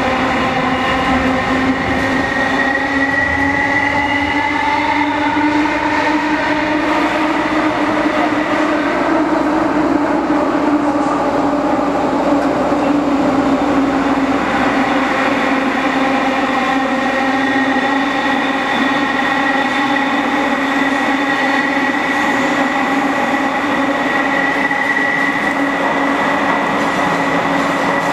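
KCR MLR electric multiple unit motor car running at speed, its nose-suspended traction motors and gears giving a steady whine over the rumble of the wheels on the rails. The whine rises slightly in pitch over the first few seconds, then holds level.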